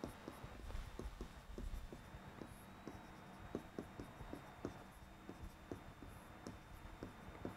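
Chalk writing on a chalkboard: faint, quick taps and scrapes of the chalk as letters are written, a few strokes a second.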